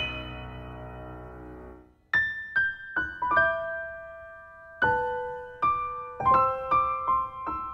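Solo piano music: a chord dies away, then after a brief pause about two seconds in, a slow melody of single struck notes begins.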